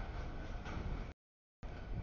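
Freight train cars rolling past on the rails, a steady noisy rumble that cuts out completely about a second in and comes back about half a second later.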